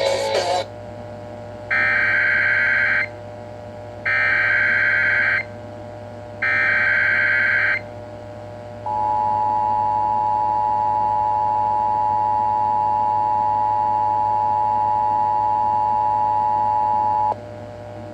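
Emergency Alert System broadcast heard through an alarm clock radio's speaker. After the music cuts off, three data bursts of SAME header tones sound about two seconds apart, followed by the two-tone EAS attention signal held for about eight seconds until it cuts off. A low hum runs underneath throughout.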